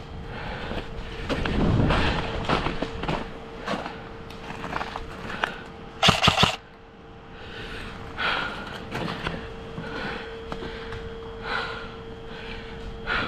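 Airsoft gunplay: scattered sharp snaps and knocks of airsoft guns firing and BBs hitting, with a short loud burst about six seconds in. A faint steady hum runs underneath.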